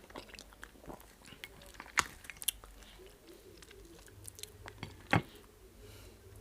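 Close-up eating sounds: chewing and wet mouth clicks from a person eating starch and black soup, with a few sharp louder smacks about two seconds in and again about five seconds in.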